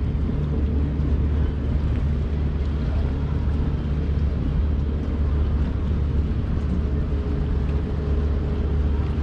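Large passenger ship's engines giving a steady low drone while it manoeuvres slowly in harbour, with a faint steady hum running over the rumble.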